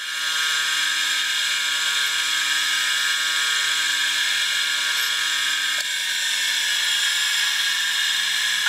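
Small electric bench grinder running steadily while the brazed tip of a homemade lathe parting tool is ground against its wheel. It makes a steady whir with a grinding hiss, and the sound shifts slightly about six seconds in.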